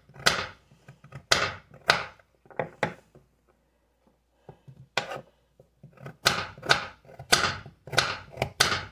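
Kitchen knife chopping baby carrots: a string of sharp, irregular knocks as the blade cuts through and strikes the cutting board, pausing for a moment a little past the middle before the cuts resume faster.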